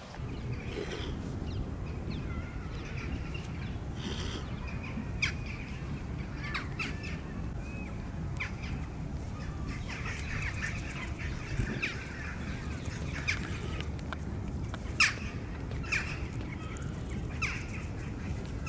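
Mute swan grazing, its bill plucking and tearing grass in short, sharp snips every second or two, with other birds calling and chirping in the background over a steady low rumble.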